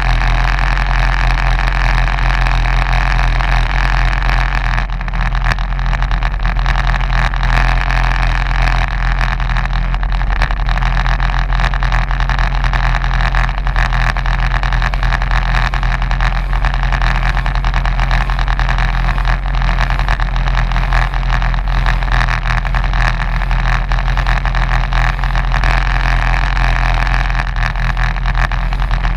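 Racing kart's engine idling steadily while the kart sits stationary, a low, even drone with a constant higher buzz over it.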